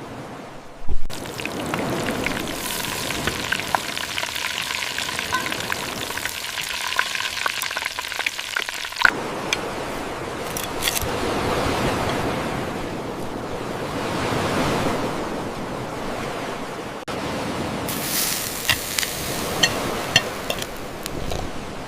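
Duck frying in hot fat in a pan: a steady sizzle with scattered small pops. The sound changes abruptly three times.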